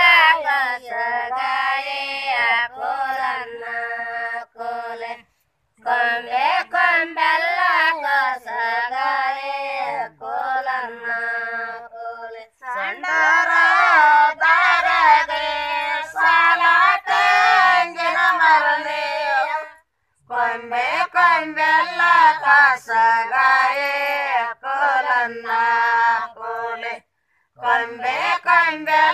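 Elderly women singing a Kannada Gowri festival folk song together, unaccompanied. They sing in long phrases broken by brief pauses every six or seven seconds.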